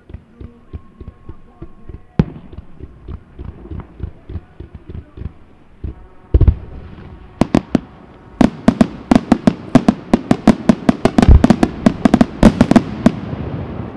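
Fireworks display: light pops and crackles for the first few seconds, a single loud bang about six seconds in, then from about eight seconds a rapid volley of loud aerial shell bursts, several a second, building toward the end.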